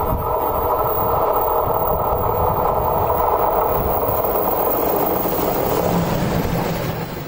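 ÖBB electric locomotive hauling a rolling-highway freight train of lorries past on the rails, its traction equipment giving a steady hum in several tones that fades as the locomotive goes by near the end. Gusty wind rumbles on the microphone throughout.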